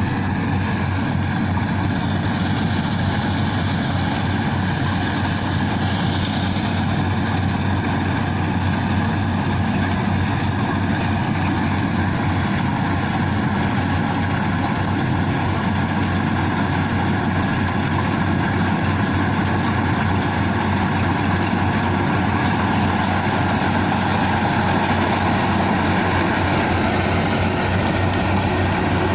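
Rice harvesting machine running steadily: a continuous engine drone with a constant mechanical whine above it.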